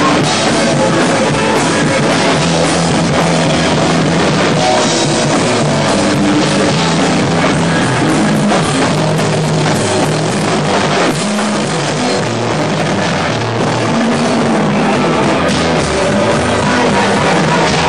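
Loud rock music with a drum kit and guitar, playing steadily without a break.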